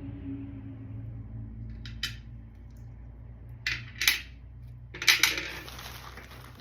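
Hard stone crystal points (quartz and amethyst) clinking against one another as they are handled, in several sharp clinks about two, four and five seconds in, the last pair followed by a short scraping rustle. A steady low hum underneath.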